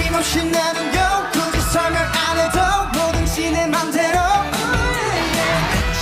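Korean-language pop song: a sung melody over a steady beat.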